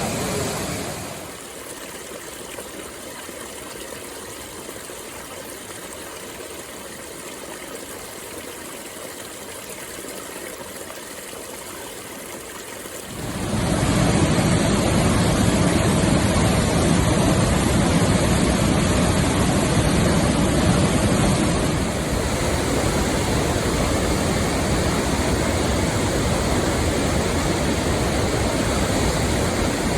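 Waterfalls rushing: a steady, unbroken roar of falling water. It turns quieter about a second in, then much louder and fuller about halfway through, and eases slightly a little later.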